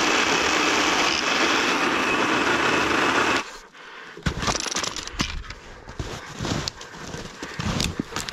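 Powered pole saw running steadily as it cuts an overhead branch, then shutting off sharply about three and a half seconds in. Scattered crackles and knocks follow as the cut brush is handled.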